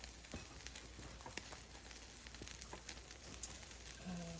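Meat sizzling on a grill over an oak wood fire, with scattered small pops and crackles through a steady hiss.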